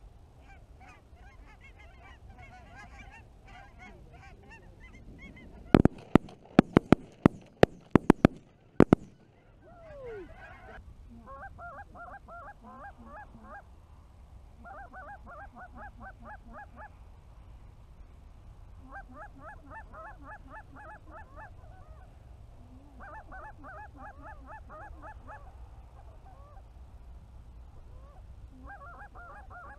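Geese honking overhead, then a rapid volley of about ten shotgun blasts from several guns over about three seconds, starting about six seconds in. The goose honking goes on afterwards in short repeated bursts.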